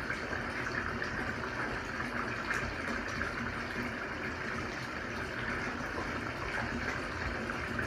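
Water running steadily from a tap into a bubble-filled bathtub, filling the tub.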